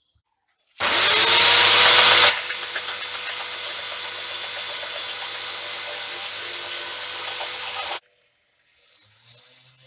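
Electric belt sander, used here to grind graphite into dust, starting abruptly with its motor pitch rising to a steady whine. It is loudest for the first second and a half, then runs steadily until it cuts off about eight seconds in.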